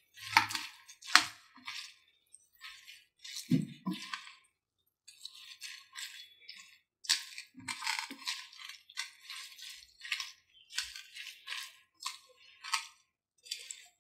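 Spatula tossing and scraping noodles, beef and vegetables around a wok, in short irregular scrapes, with a couple of low knocks in the first few seconds.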